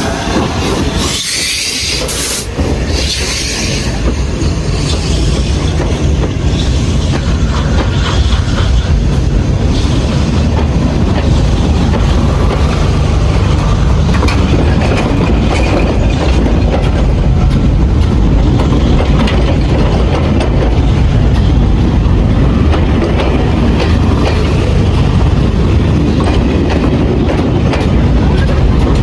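A train running past, its wheels clattering over the rail joints under a heavy, steady low rumble that builds over the first ten seconds or so and then holds.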